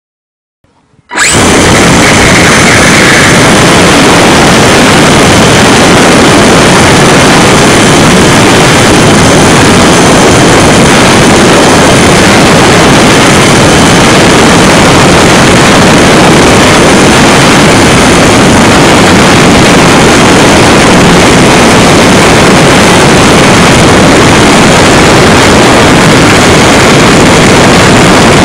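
HobbyZone Super Cub's electric motor and propeller running right beside the onboard microphone, with air rushing past: a loud, steady, overloaded buzz that starts abruptly about a second in.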